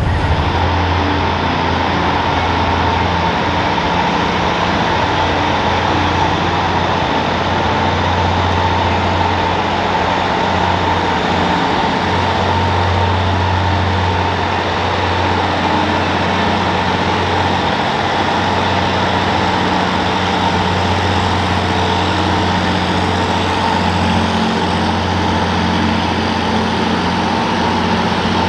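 Big Bud tractor's Caterpillar diesel engine running steadily, a loud, deep, even engine note that holds without revving up or down.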